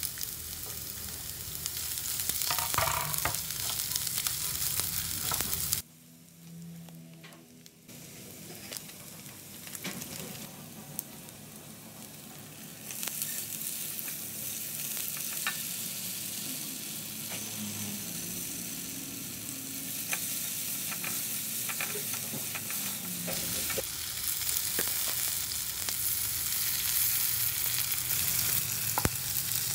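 Garlic and shallots sizzling in hot oil in a nonstick wok, stirred with a spatula that scrapes and taps the pan. The sizzle drops briefly about six seconds in and turns louder from about thirteen seconds in, as instant rawon spice paste goes into the oil.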